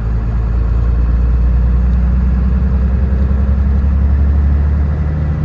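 Heavy truck's diesel engine running steadily under way: a loud, even low drone.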